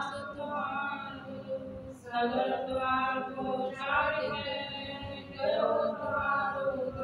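A group of women singing a Sikh shabad (Gurbani hymn) together without instruments, in long sung phrases with short breaks about two seconds in and again past five seconds.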